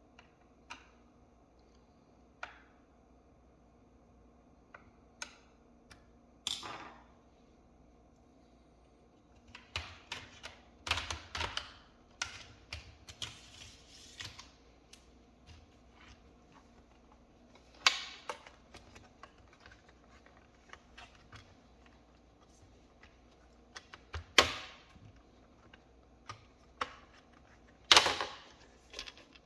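Irregular clicks and clatter of hard plastic and small parts on a laptop. A few scattered single clicks come first, then bursts of clatter about ten seconds in and several sharp louder clicks later on.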